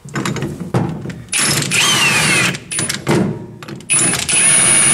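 Milwaukee M18 Fuel cordless impact wrench run in two bursts, driving the bolts of a bearing separator clamped behind a differential pinion bearing. The second burst holds a steady high whine. There are a few knocks of metal handling in the first second.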